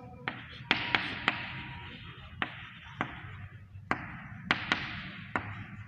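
Chalk writing on a blackboard: about ten irregular sharp taps as the chalk strikes the board, with a scratchy hiss of chalk dragging between them.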